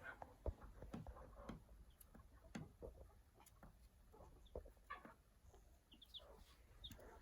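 Faint sounds of a young chick: scattered light taps and clicks, with a quick run of short, high peeps near the end.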